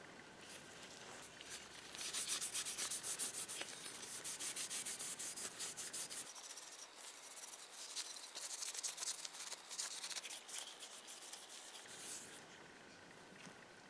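A cloth rubbed briskly back and forth over the bare metal parts of a vintage hand drill, a fast run of hissing strokes that starts about two seconds in and stops near the end.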